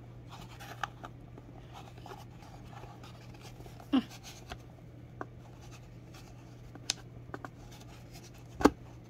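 Hands working a perfume bottle out of its snug cardboard box insert: scattered scrapes and small clicks of handling, with two louder knocks, one about four seconds in and one near the end, over a steady low hum.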